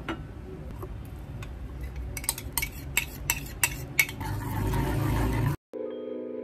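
Cookware being handled on a gas stove: a run of sharp clicks, about three a second, then a low rushing that cuts off abruptly. Soft mallet-instrument music follows near the end.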